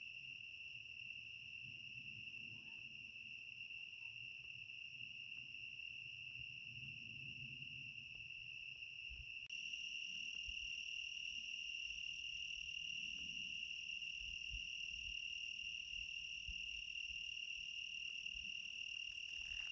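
Crickets chirping at night, a steady high-pitched trill that goes on without a break and gets a little louder about halfway through.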